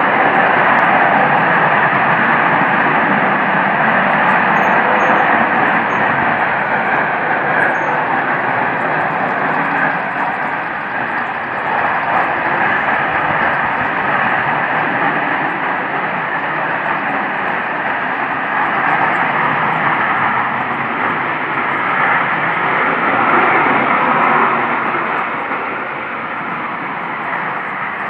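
A really loud, continuous noise from the sky that sounds like jets flying overhead, with no planes in view to account for it. It swells and eases slowly and drops a little near the end, and to the recorder it is louder than planes make.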